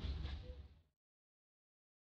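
Outdoor background noise, a low rumble with a faint hiss, fading out within the first second and then giving way to complete silence.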